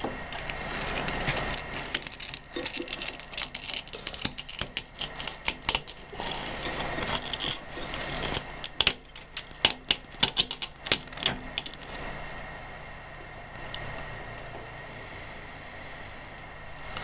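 Needle-nose pliers clicking and scraping in a microwave oven's lamp socket, picking at the stuck base and broken glass of a shattered bulb. It is a quick, irregular run of small sharp clicks and scrapes that stops about twelve seconds in, leaving a low steady hum.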